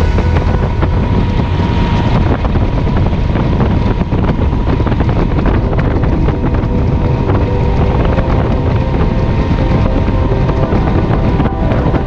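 Triumph Trophy's three-cylinder engine running steadily at cruising speed, with wind rushing over the microphone.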